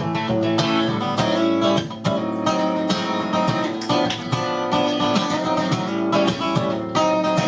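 Acoustic guitar strumming chords steadily in an instrumental break of a country-style song, without vocals.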